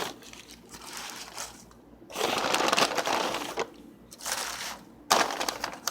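Takeout bag and food wrappers rustling and crinkling as food is unpacked, in irregular spells, the loudest about two to three and a half seconds in, with a short sharp one just after five seconds.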